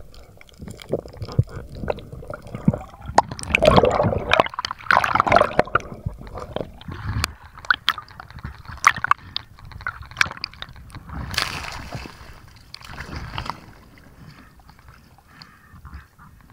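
Water sloshing and gurgling close to the microphone, with irregular clicks and knocks and a short hissing burst about two-thirds of the way through.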